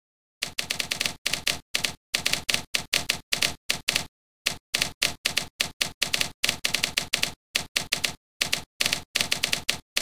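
Typewriter key-strike sound effects from a typewriter-themed word processor program, a clack for each keystroke as text is typed. The clacks come in quick word-length runs with dead silence between them, starting about half a second in, with a slightly longer pause around the middle.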